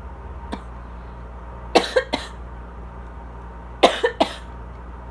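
Asthma coughing in two short fits, three quick coughs in each, about two seconds apart, over the steady hum of an air conditioner.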